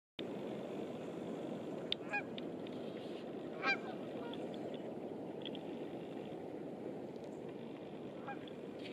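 Geese honking a few times, with short calls about two seconds in and again near four seconds, and a fainter one near the end, over a steady low rushing background.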